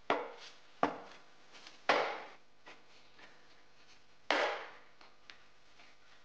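Wood-on-wood knocks from thin walnut divider strips being fitted into the slotted grid of a walnut tray by hand. There are four sharp knocks, the last about four seconds in, and the later two trail off in a short scrape.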